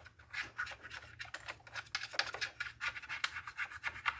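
A small cleaning tool scraping packed sawdust and debris out of a Husqvarna 450 chainsaw's body, in quick, irregular scratching strokes.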